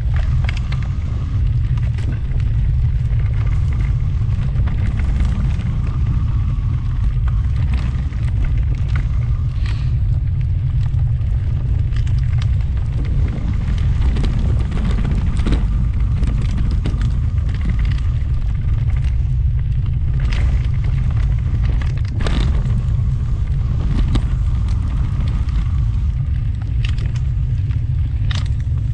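Mountain bike riding a dirt singletrack: a steady low rumble of wind and ride noise on the microphone, with frequent clicks and rattles from the bike jolting over bumps.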